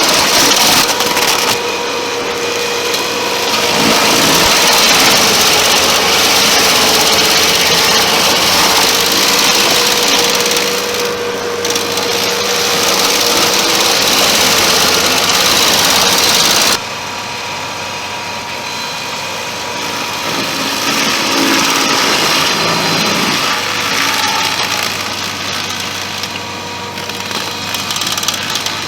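Remote-control stump grinder's engine running steadily with a loud, hissing grind; about two-thirds of the way through the sound drops sharply and goes on quieter and duller.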